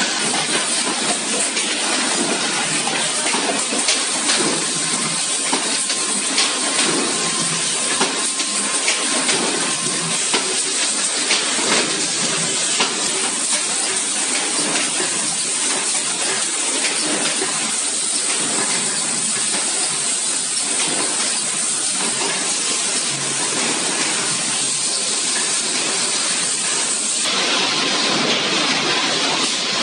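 Steel drum production-line machinery running: a dense, steady hiss of factory noise with scattered clicks. The noise changes in tone near the end.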